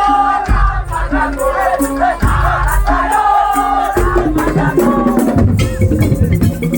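Loud ensemble music with a bending, wavering high melody over deep drum beats that fall about every two seconds, with rattles; the rhythm changes about four seconds in.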